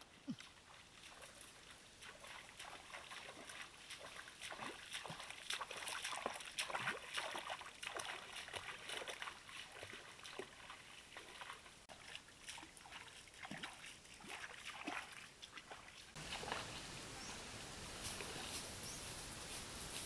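A person wading through a shallow creek: irregular small splashes and sloshes of water from each step. Near the end the sound changes to a steadier hiss.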